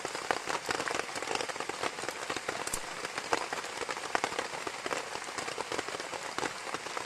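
Duck breast frying in a carbon steel pan, a steady dense sizzle of many tiny crackles and spits.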